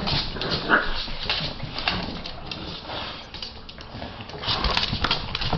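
English Bulldogs scuffling over a large plush toy on a hardwood floor: paws and claws clicking and tapping on the boards, with a brief high sound about a second in. The taps are busiest near the end.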